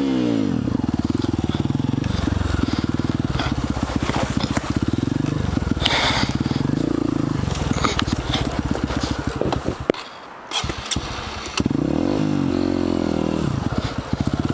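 Honda CRF150F dirt bike's single-cylinder four-stroke engine running and being revved on and off, with rising revs about a second in and again near the end. Its sound briefly drops away about ten seconds in, then picks up again.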